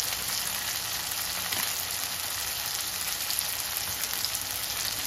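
Beans sizzling as they fry in oil in a pan: a steady sizzling hiss with scattered small crackles.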